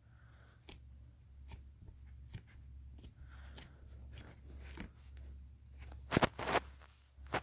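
Slime being squeezed and poked by hand, giving irregular small clicking and crackling pops, with two louder pops a little after six seconds in.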